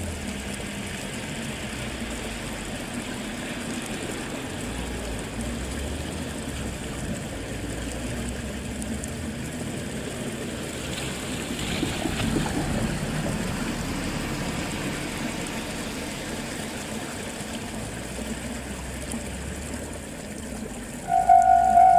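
Steady outdoor background hiss that swells briefly about halfway, then near the end a Japanese level-crossing alarm starts ringing loudly: a fast, repeating electronic ding, the warning that a train is approaching.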